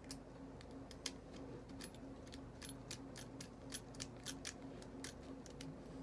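Light, irregular metallic clicks and taps, about fifteen in six seconds, from small metal parts of a tinplate toy locomotive being handled and worked by hand.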